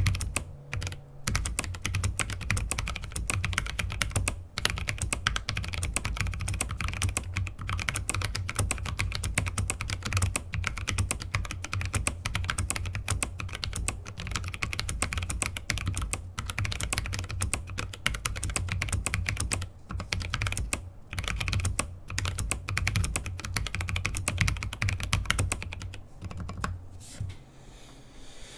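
Fast, continuous typing on a YMD84 mechanical keyboard with Kailh Speed Copper tactile switches, brass plate and frosted polycarbonate case, with a loud click from the single Kailh Box Jade clicky spacebar switch at the end of each word. Typing pauses briefly a few times and dies away near the end.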